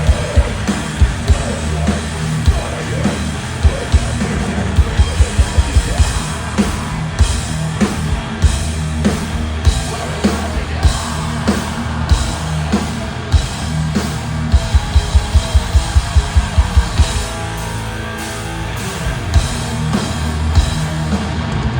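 Thrash metal band playing live: distorted guitars and bass over a drum kit, with runs of rapid, loud drum hits, and a sparser stretch about three quarters of the way through.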